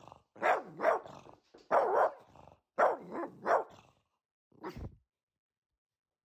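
A dog barking repeatedly in quick pairs, stopping after about five seconds.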